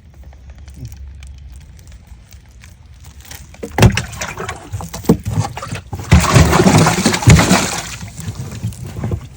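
Knocks against a small fishing boat, then a few seconds of loud splashing water with more thumps, starting about four seconds in.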